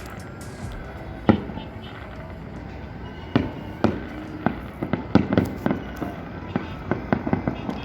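Fireworks going off: a few separate sharp bangs, then a quicker run of cracks and bangs in the last few seconds.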